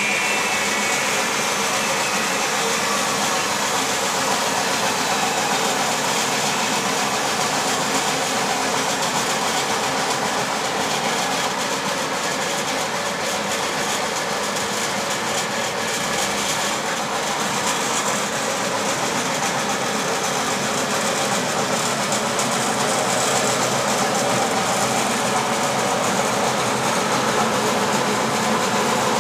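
Coffee-bean sieving machine running steadily, its shaking mesh screen driven by an electric motor through a belt and pulley: a continuous, even mechanical noise.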